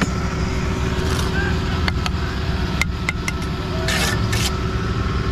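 An engine running steadily with a low hum, with a few sharp knocks around the middle and a brief rush of noise about four seconds in.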